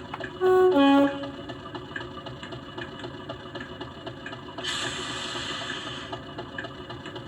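Sampled Class 50 diesel sound played from a model locomotive's sound decoder through its small speakers: the engine idling steadily, a two-tone horn sounding a higher note then a lower one near the start, and a burst of air hiss lasting about a second and a half in the middle.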